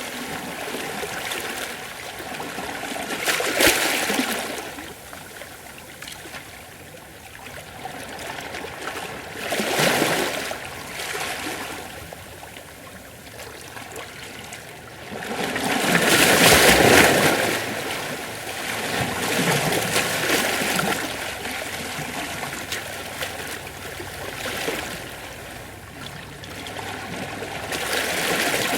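Gentle ocean waves washing over rocks. The waves surge in every few seconds, the loudest a little past halfway, and water trickles and drains off the rocks between them.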